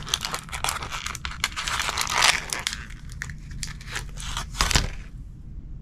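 Clear plastic bait package crinkling and crackling as a soft plastic worm is pulled out of it: dense, irregular crackles that die away about five seconds in.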